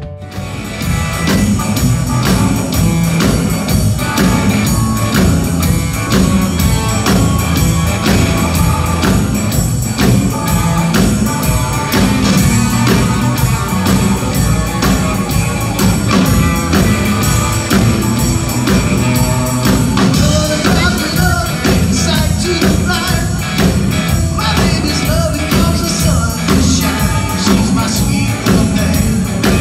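A live band playing: drum kit, electric guitar, electric bass and keyboard, with a man singing at the microphone. The full band comes in loudly about half a second in.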